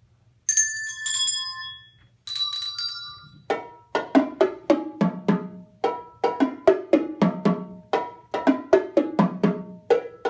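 A small set of colored handbells rung in two short groups of high ringing notes, then a quick, steady beat of struck drum hits, about three to four a second, played by children.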